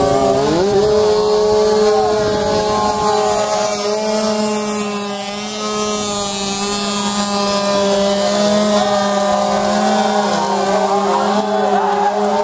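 Tuned scooter engine held at high revs during a burnout, its rear tyre spinning on the tarmac. The revs climb in the first half second and then hold steady, with small wavers.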